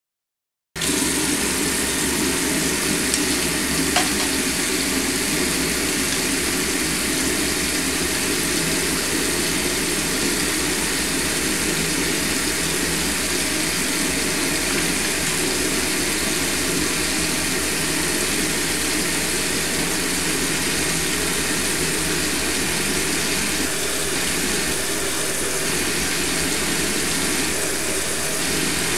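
Water running steadily from a tap, a constant rush that starts abruptly about a second in, with one faint click a few seconds later.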